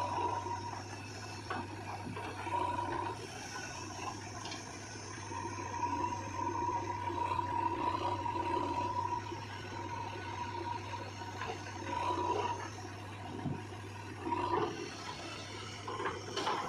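Backhoe loader's diesel engine and hydraulics running under load, a steady low hum with a whine that comes and goes and occasional knocks.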